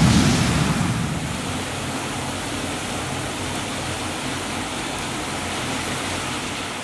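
Heavy downpour: a steady hiss of rain, with a car's tyres swishing through flooded street water, louder in the first second or so.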